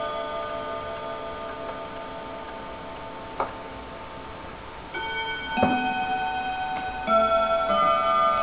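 Wall regulator chime clock's rods ringing, the earlier notes fading, then a single click about three and a half seconds in. From about five seconds in the hammers strike fresh notes of the chime melody, set off by turning the minute hand to the hour.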